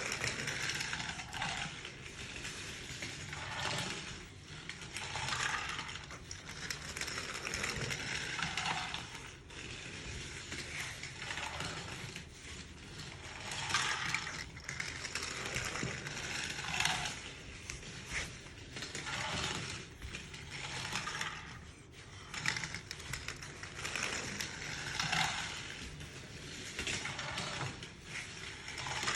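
Brio wooden toy train rolling along wooden track, its wheels and cars rattling and clicking in repeated swells every second or few.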